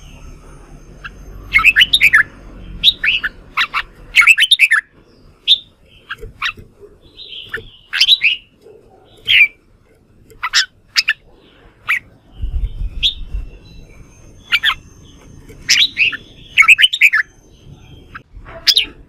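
Red-whiskered bulbul singing its loud fighting song: short bursts of sharp, sweeping whistled notes, a phrase every second or two with brief pauses between.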